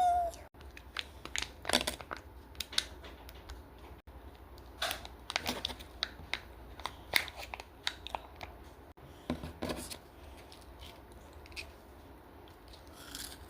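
Kinder Joy egg's foil wrapper and plastic capsule being handled and opened: several separate bouts of crinkling, tearing and sharp clicks.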